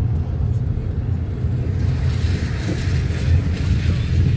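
Steady low rumble of a car in motion, heard from inside the cabin, with a hiss of tyres on the wet road coming in about two seconds in.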